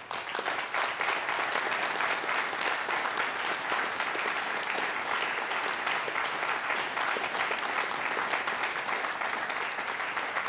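Audience in a large hall applauding steadily, a dense patter of many hands clapping at an even level throughout.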